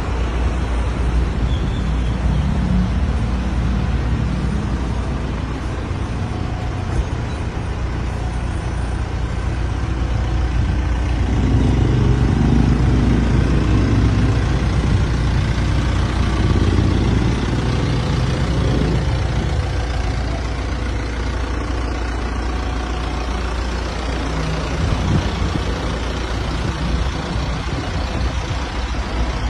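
Diesel engine of an Isuzu Elf Giga minibus idling steadily, a continuous low drone.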